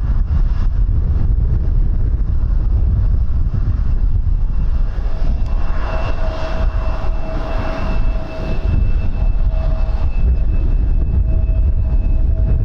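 Aircraft engines with a steady, high whine that comes in about five seconds in and holds, over heavy wind buffeting on the microphone.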